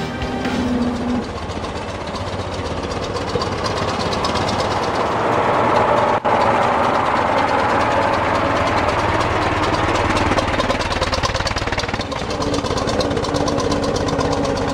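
The 1928 Studebaker Commander's 354-cubic-inch six-cylinder gasoline engine running with an even beat. There is a brief dropout about six seconds in. Near the end the car drives off.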